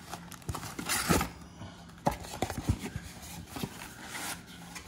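Cardboard trading-card mega box being handled and opened: rustling and scraping of cardboard, with a few light taps and clicks, as the inner tray of packs is pulled out.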